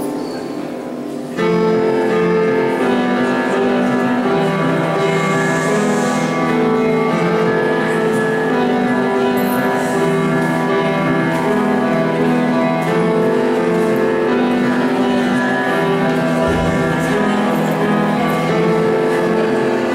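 Upright piano played in chords and melody. A softer passage gives way to fuller, louder playing about a second and a half in.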